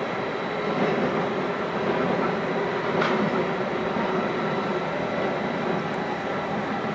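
Steady mechanical rumble with several faint, high, even whining tones over it, and one short sharp click about three seconds in.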